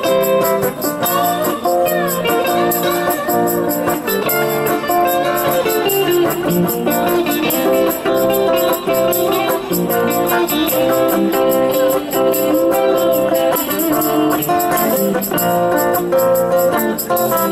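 Small live band playing electric and acoustic guitars, with notes bending and sliding over a steady quick beat.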